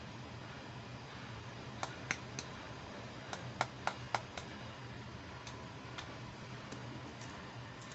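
Light clicks and taps from small plastic toy accessories being handled, about a dozen in a cluster between two and four and a half seconds in, with a few fainter ones later, over a low steady hum.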